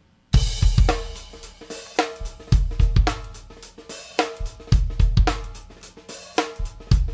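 A song with a full drum kit (kick, snare, hi-hat and cymbals) starts suddenly about a third of a second in and keeps a steady beat, with a Stratocaster-style electric guitar playing along.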